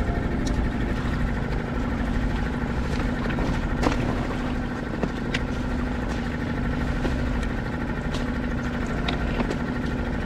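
Boat engine running at a steady speed, an even hum with no change in pitch, with a few sharp clicks and knocks on top, the loudest about four seconds in.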